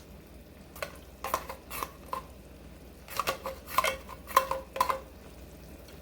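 A metal utensil clinking against a cooking pot while vegetables are stirred in it: about a dozen light knocks in two bunches, with a short ring after each.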